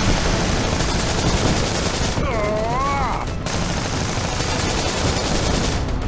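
Dubbed rapid automatic gunfire, a steady rattle of shots. About two seconds in it stops for roughly a second while a wavering, voice-like cry sounds, then the firing resumes.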